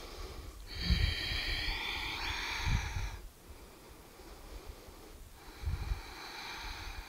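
A woman's long, audible breaths close to the microphone, one about a second in and another near the end, with low gusts of wind rumbling on the microphone.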